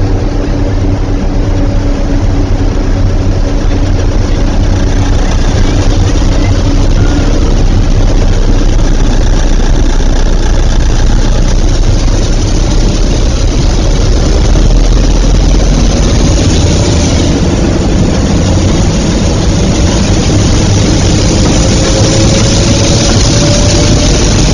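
Class 33 diesel locomotive engine running steadily while the train stands at the station, its note slowly rising in pitch over the second half.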